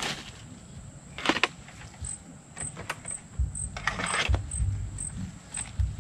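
Wire-mesh snake trap being handled: short metallic rattles and jingles, a longer one about four seconds in, with low knocks and rustling in the second half. A faint high tick repeats about twice a second in the background.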